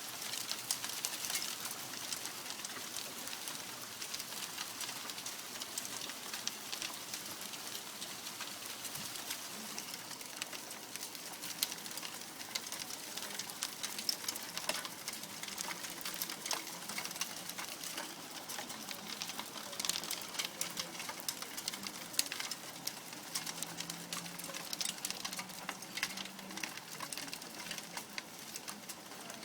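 Hailstones falling and striking a hard surface: a dense, uneven stream of small sharp clicks.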